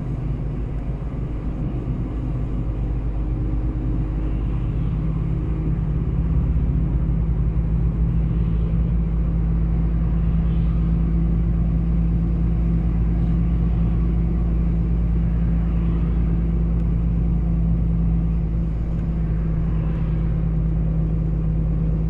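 Heavy truck's engine and road noise heard inside the cab, a steady low drone with a constant hum, as it climbs a long grade at low speed.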